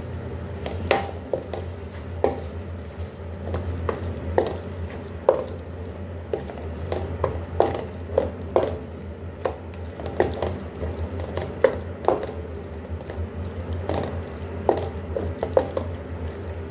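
Wooden spatula stirring and scraping beef mince around an aluminium pot as it fries, with irregular knocks and scrapes about once or twice a second. A steady low hum runs underneath.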